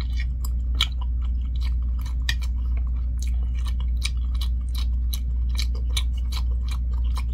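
Close-miked chewing of a mouthful of spicy Korean rice cakes (tteokbokki): wet mouth clicks and smacks, irregular, about three a second, over a steady low hum.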